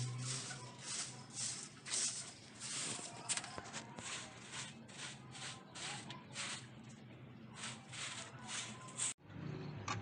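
Grass broom sweeping straw and chaff bedding across a coop floor in quick, regular swishes, about two strokes a second.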